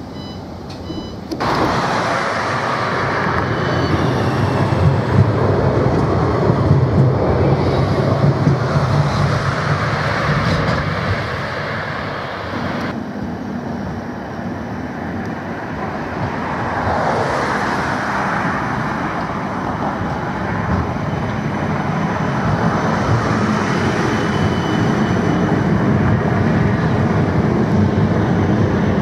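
Outdoor street and traffic noise with a passing vehicle whose pitch falls about halfway through. Near the end a long CAF Urbos tram runs up and passes close on its rails. The opening second or so is a quieter steady hum with faint high tones inside a tram before the sound cuts to the street.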